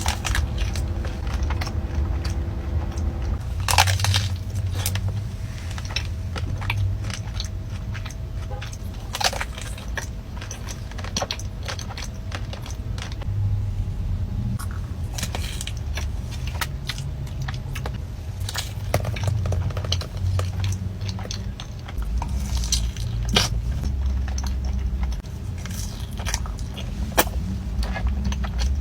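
Close-miked eating sounds: pastry being bitten, crunched and chewed, with many small crisp clicks and crackles over a steady low rumble.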